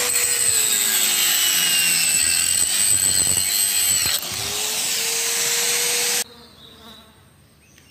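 Bosch GWS 600 angle grinder cutting into a rusty steel bar: a loud, high whine whose motor note sags as the disc bites in and picks back up a little past halfway. Near the end the sound cuts off abruptly, leaving only a faint background.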